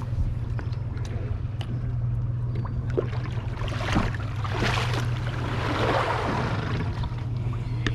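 Motorboat under way: a steady low engine hum with water rushing and splashing against the hull, the splashing swelling for a few seconds in the middle.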